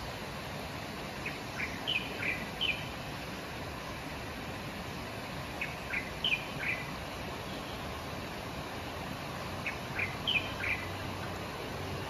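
Steady rush of a fast-flowing, swollen river. Over it a bird calls three times, about four seconds apart, each call a quick run of four or five high chirps.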